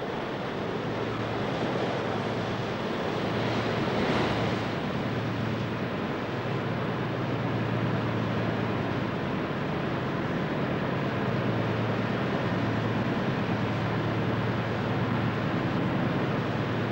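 Sea water and wind rushing steadily over a ship's deck in rough sea, with a steady low hum underneath. A louder surge of water comes about four seconds in.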